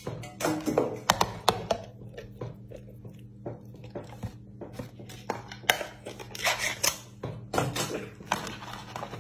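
Food being tipped out of glass jars onto a plate: scattered clicks, clatters and knocks of the jar and food against the plate, over a faint steady low hum.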